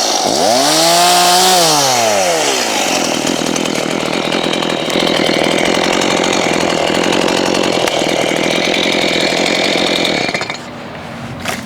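Two-stroke chainsaw revving up and back down, then running steadily at high speed as it cuts through fruit-tree wood, dropping off about ten seconds in.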